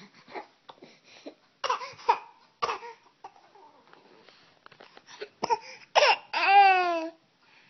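A child's fake coughs: several short, forced coughs, then a drawn-out wavering whine near the end, the loudest sound.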